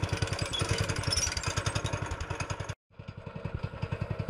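Small engine running at low speed, a steady rapid chugging of about ten beats a second; it drops out briefly a little past halfway and comes back.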